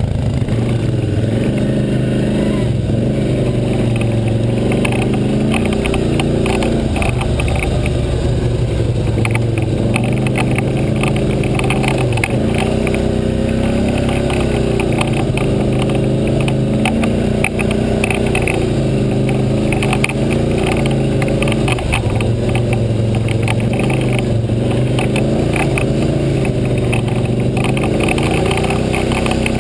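ATV engine running over a rough dirt trail, its pitch rising and falling every few seconds as the throttle comes on and off, with a rapid crackling over it.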